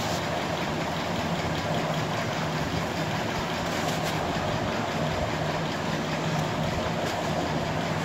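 Steady background noise, an even hiss with a faint low hum, holding level throughout.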